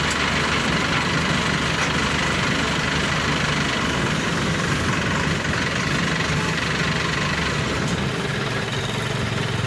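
Diesel engine idling steadily at close range, with a low, even throb.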